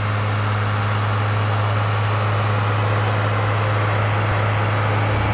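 Schlüter Super 1250V tractor's six-cylinder diesel engine running steadily under load while pulling a cultivator through the soil: an even, constant low engine drone.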